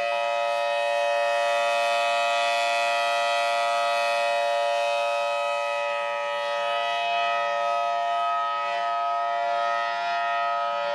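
Civil defence warning siren sounding a steady tone: several pitches held together as a chord, with no rise or fall, over a rushing hiss.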